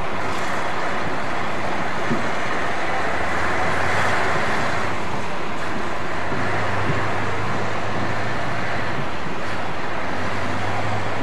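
Diesel engines of mobile cranes running steadily as they hold a railway carriage aloft, a low steady hum under a broad noisy rush.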